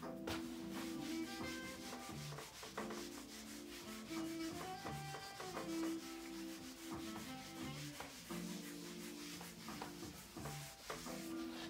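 Handheld whiteboard eraser rubbing back and forth across a dry-erase board, wiping off marker, with background music playing underneath.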